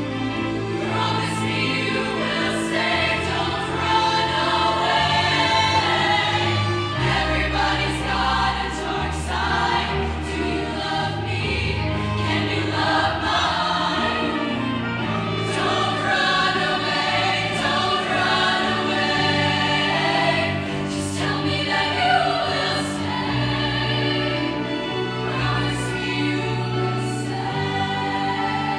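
Show choir singing a slow ballad in full-voiced harmony. Held low bass notes run underneath and change every couple of seconds, and the singers' 's' sounds hiss faintly above.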